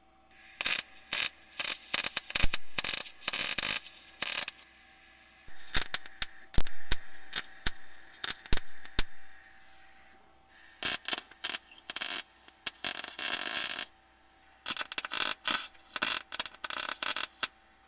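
Arc welder laying tack welds on a steel flat bar: four bursts of crackling arc, each one to four seconds long, with short pauses between them.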